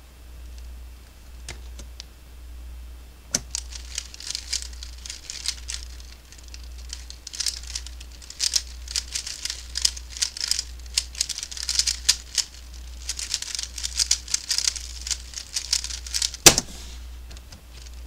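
3x3 Rubik's Cube being turned by hand: quick plastic clicking and clattering of the layers in irregular bursts, with a louder single knock near the end, over a low steady hum.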